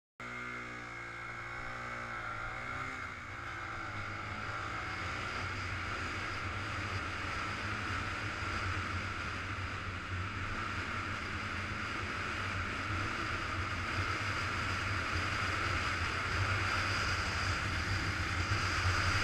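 Suzuki GZ250's single-cylinder engine running under way, its pitch climbing and dropping in the first few seconds. Wind rush over the camera mount then takes over and builds steadily louder as speed rises.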